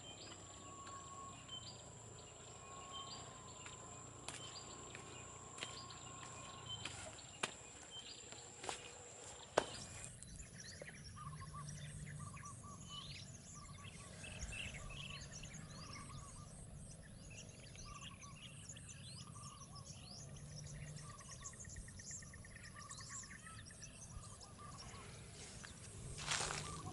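Wild wetland birds chirping and calling, with a steady high-pitched whine under the first ten seconds. A sharp click comes about ten seconds in, where the background changes abruptly, and after it many short, repeated chirps fill the rest.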